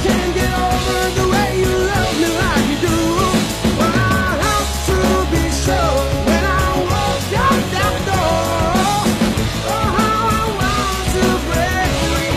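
Background rock music: a song with singing over drums and a steady bass beat.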